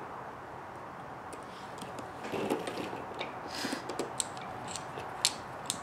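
A hex driver driving a small screw into the end of a plastic RC crawler axle: scattered small clicks and taps of metal tool and parts being handled, with a brief louder scuff about two and a half seconds in and the clicks coming more often near the end.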